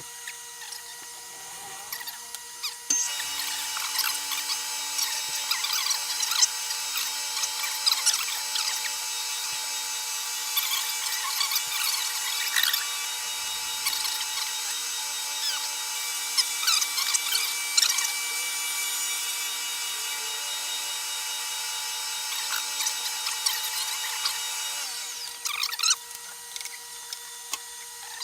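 Milling machine spindle running with a steady whine; about three seconds in the cutter starts cutting into a wooden block, giving a rough, steady cutting noise with scattered clicks, which stops a few seconds before the end while the spindle keeps running.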